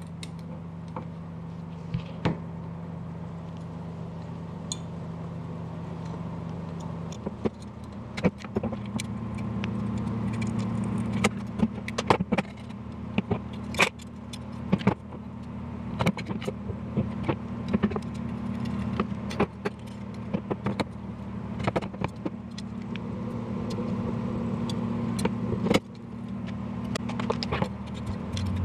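Steel BMX spokes clicking and jingling against the hub flange and rim as they are threaded and bent into place while lacing a 36-hole wheel, with many irregular metallic ticks. A steady low hum runs underneath and shifts in pitch about a quarter of the way in and again near the end.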